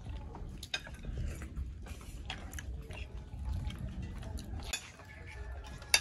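Metal spoon clinking and scraping on a ceramic plate while scooping up soft food, in scattered short clicks, with some chewing.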